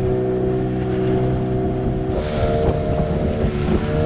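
A fishing boat's engine running steadily under way, with wind and water noise from the hull moving through choppy water. The engine's pitch shifts abruptly about two seconds in.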